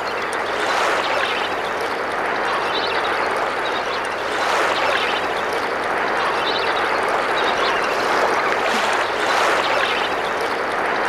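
Steady rush of water with water birds calling now and then over it.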